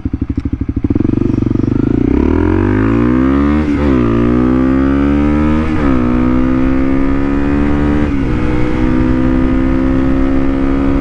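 Motorcycle engine idling with an even pulse, then pulling away about a second in. It revs up through the gears with three upshifts about two seconds apart, the pitch climbing and then dropping at each shift. After the third shift it runs steadily at a cruising pace.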